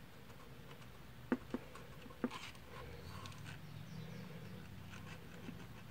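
Faint clicks and light scratching from a hot glue gun being worked against a plastic computer-case front panel, with three small clicks in the first couple of seconds.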